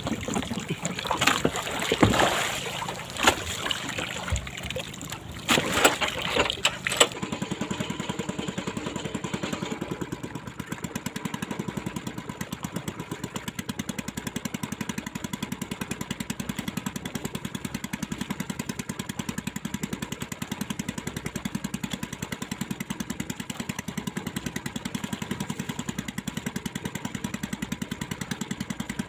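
Water splashing for the first several seconds. Then a small boat engine takes over, running steadily at low speed with an even, rapid pulse while the boat trolls a bait.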